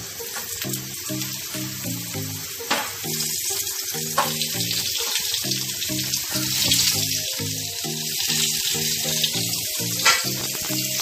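Coated Bombay duck (bombil) fillets sizzling as they shallow-fry in oil on a flat tawa, the sizzle growing louder as more fillets are laid in, with a few sharp taps. Background music with a stepped melody plays under it.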